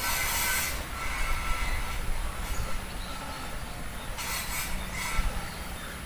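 Wind rumbling on the microphone over a rice paddy, with brief hissing rustles of the rice stalks at the start and again about four seconds in.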